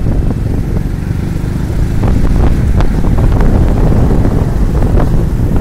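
Wind buffeting the microphone over the low, steady rumble of a vehicle moving at road speed.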